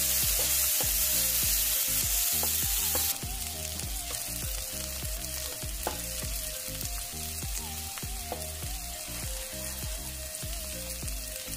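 Chopped onions sizzling in hot oil in a frying pan as they are stirred and turned with a slotted spatula while they brown. The sizzle drops suddenly in level about three seconds in.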